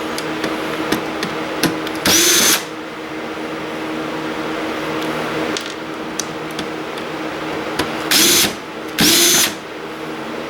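Electric drill-driver spinning up in three short bursts of about half a second each: one about two seconds in, and two close together near the end. Small clicks come between the bursts.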